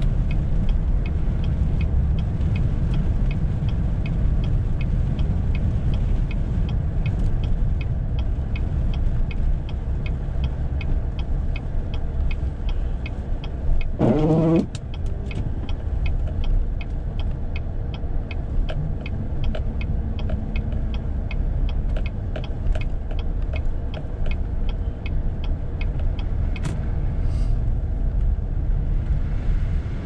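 Steady low rumble of a truck driving on snow-covered roads, heard from inside the cab: engine and worn Goodyear all-season tyres. A fast, regular light ticking runs under it, and a short rising tone sounds about halfway through.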